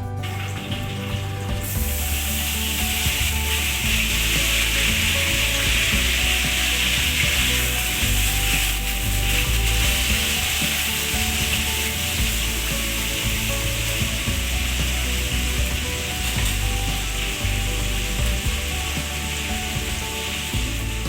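Food sizzling in hot oil in a frying pan, the hiss coming on suddenly about two seconds in as the food goes into the oil, then running steadily.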